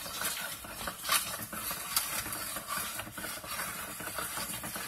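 Plastic toy ice cream maker being hand-turned, crushed ice and mixture scraping and rattling inside its chilling tank with irregular plastic clicks and knocks, the sharpest about a second in.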